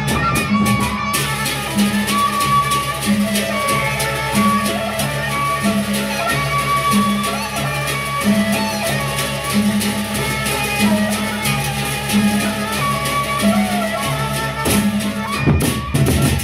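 Gendang beleq ensemble playing: large barrel drums beaten with sticks and crashing cymbals over a low two-note pattern that alternates about twice a second, with a sustained melody line above. The pattern breaks briefly near the end.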